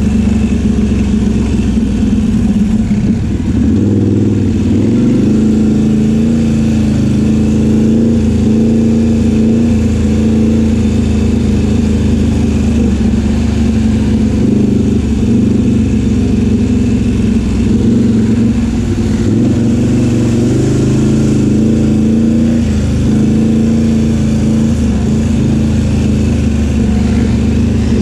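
ATV engine running at a steady trail pace, heard close up from a camera mounted on its rack, with small rises and falls in pitch as the throttle eases and opens.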